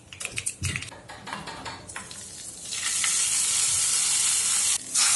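Mustard seeds crackling and popping in hot oil in a small steel tempering pan. About three seconds in comes a loud, steady sizzle as the hot oil and seeds hit the green chutney.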